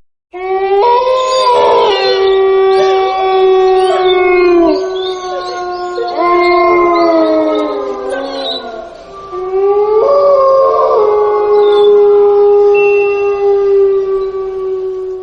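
Several wolves howling together in a chorus. Long, drawn-out howls at different pitches overlap, some held steady and some sliding slowly up or down, with a short lull about nine seconds in before the howling swells again.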